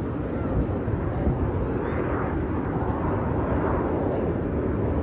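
Jet noise from the Red Arrows' BAE Hawk T1 aircraft, single Adour turbofans, heard as a steady rumble that grows slightly louder toward the end.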